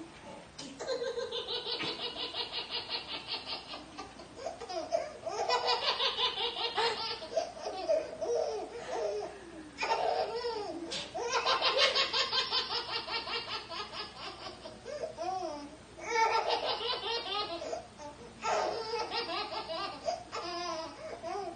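A baby laughing in repeated bouts of belly laughter, each bout a quick string of breathy pulses, with short pauses between bouts.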